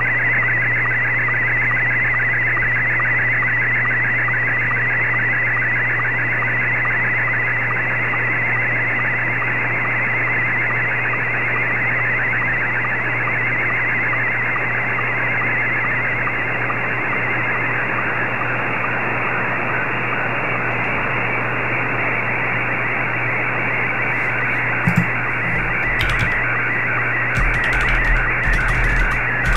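Slow-scan TV picture signal in Scottie 1 mode received on the 14.230 MHz amateur band: a steady stream of rapidly shifting warbling tones with a fine regular pattern, under shortwave static and a steady low hum. A few short clicks near the end.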